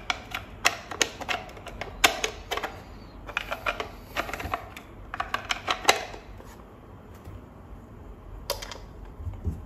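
Quick plastic clicks and knocks from a Yokogawa 2414 analog multimeter's case being handled and put back together after a new battery is fitted, in bursts through the first six seconds, then a couple of single clicks near the end.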